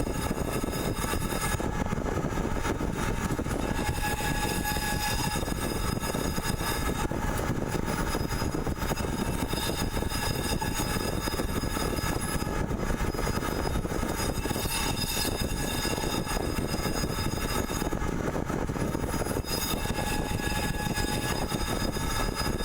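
CNC pipe-threading machine running: a steady mechanical noise with several high tones that come and go.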